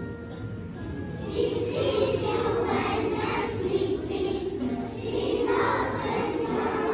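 A group of first-grade children singing together with music playing along; the voices grow louder about a second and a half in.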